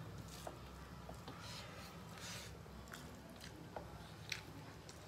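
Quiet eating sounds of hands mixing rice and curry on metal plates: soft squishy rustles and a scattering of light clicks.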